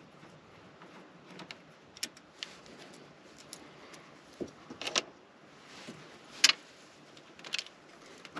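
Scattered clicks and clinks of tools and small metal parts being handled while working on a car, with the sharpest knock about six and a half seconds in.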